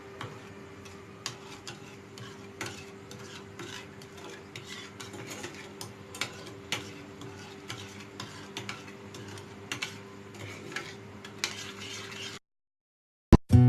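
A spoon stirring homemade sugaring wax (cooked sugar, lemon juice and water) in a pot as it reaches its ready stage, with irregular clicks of the spoon against the pot over a low steady hum. The sound cuts out about twelve seconds in, and guitar music starts just before the end.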